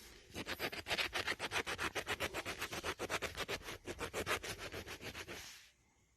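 Rapid back-and-forth scraping of a scratch-off lottery ticket's coating, about eight strokes a second, starting just after the beginning and stopping near the end.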